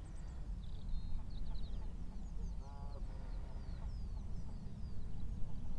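Wind rumbling on the microphone, with small birds singing in quick falling chirps and a single waterfowl call about three seconds in.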